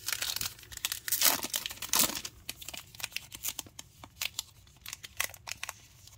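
A 2022 Donruss baseball card pack's wrapper being torn open and crinkled by hand. The loudest ripping comes a little over a second in and again at about two seconds, followed by many short crackles as the wrapper is pulled apart.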